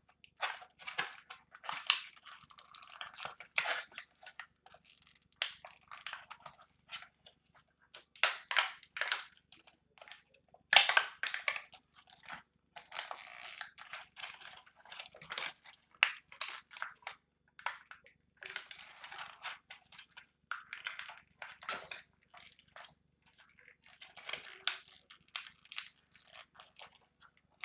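Irregular plastic clicks, scrapes and crinkles: a stuck Beyblade part being pried at with a pencil and handled.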